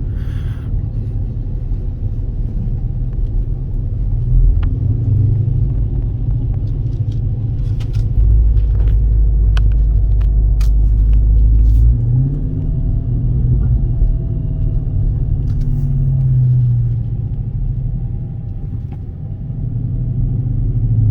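Dodge Charger Scat Pack's 392 (6.4-litre) HEMI V8 heard from inside the cabin while driving, a low engine rumble with road noise. The engine note climbs about twelve seconds in, falls away a few seconds later, eases off briefly and climbs again near the end.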